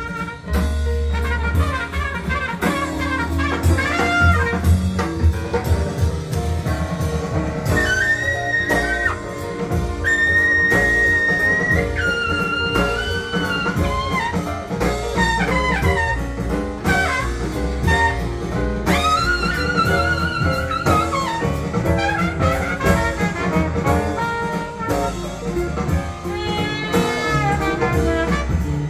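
Jazz recording with a brass lead and drum kit, played back over a pair of DeVore Fidelity loudspeakers in a listening room; the lead holds a long wavering note about two-thirds of the way through.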